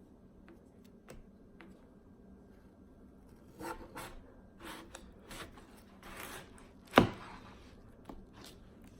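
Watermelon being bitten and chewed close to the microphone, with a run of crisp, juicy crunches through the middle and one sharp, loud snap near the end.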